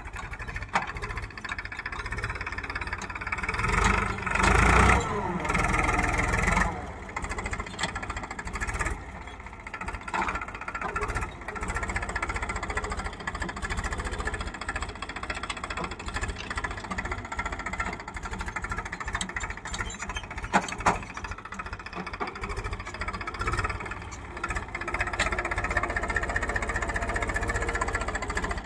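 Powertrac farm tractor's diesel engine running while pulling a rear-mounted implement through soil. It grows louder for a couple of seconds about four seconds in, then settles back to a steady run.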